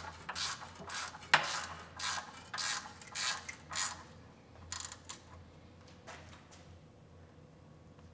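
Ratcheting wrench tightening a bolt by hand: a steady run of ratcheting strokes, about two a second. It stops about four seconds in, followed by a few scattered light clicks.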